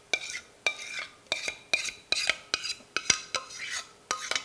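A metal utensil scraping and knocking against a stainless steel saucepan as thick cheese sauce is scraped out of it. The strokes come about three a second, each with a short metallic ring.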